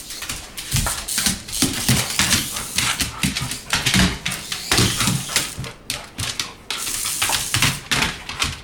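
A dog scrabbling and clattering on a hard floor while chasing a radio-controlled toy car, with rapid irregular clicks and knocks and a few heavier thumps.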